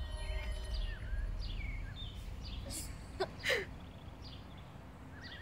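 Small birds chirping, with short whistled calls and falling notes coming every half second or so, over a steady low outdoor rumble. A brief louder sound with a falling pitch comes about three and a half seconds in.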